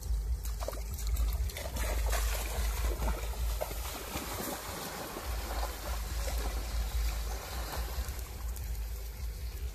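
Crabs and a bird roasting on a stick grill over hot embers, giving a steady sizzling hiss with scattered small crackles, over a low rumble of wind on the microphone.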